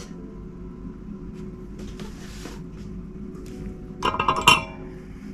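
Porcelain teacup and saucer clinking together: a short rattle of ringing clinks about four seconds in.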